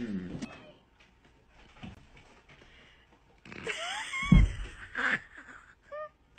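A cat bursts out of a plastic storage tote, giving a heavy thud and a clatter of the plastic lid at about four seconds in. A brief high gliding cry comes just before the thud, and a short call follows near the end.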